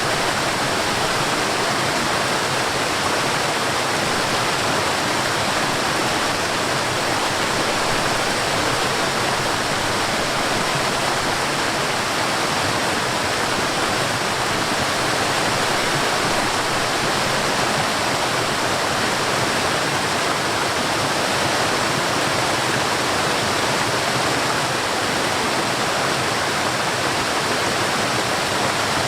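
Waterfall: water falling and rushing steadily with an even, unbroken hiss, no change in level.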